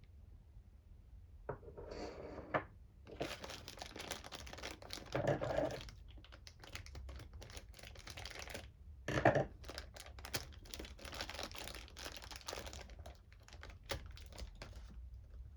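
Packaging being handled during an unboxing: repeated crinkling and tearing with many small crackles, in stretches with a short pause about midway, and two louder rustles about five and nine seconds in.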